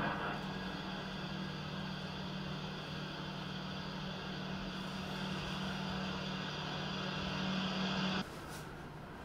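A steady mechanical droning hum, with a low two-note hum under a hiss, that swells slightly and then cuts off abruptly about eight seconds in.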